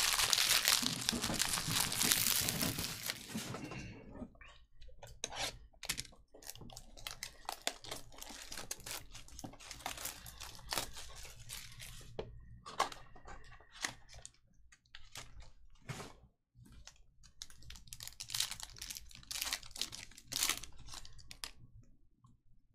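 Packaging of a trading-card box and its packs being torn open, loudest for the first few seconds. Then come scattered crinkles and clicks of wrapper and cardboard handling, with a louder spell of crinkling near the end.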